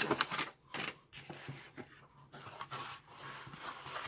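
Cardboard shipping box being handled and its flaps folded open, giving irregular scraping and rustling.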